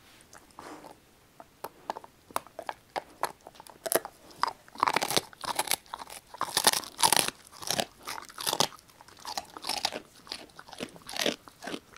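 Labrador retriever mix dog biting and chewing a dried duck neck bone, with many sharp, irregular crunches as the bone cracks. The crunches begin sparsely and turn louder and denser about four seconds in.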